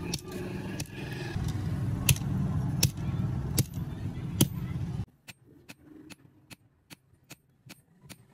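Hand hammer striking a red-hot strip of bearing steel on an anvil, forging it flat: single sharp blows a little under a second apart over a steady low rumble. About five seconds in the rumble cuts off, and quicker, quieter blows follow, about three a second.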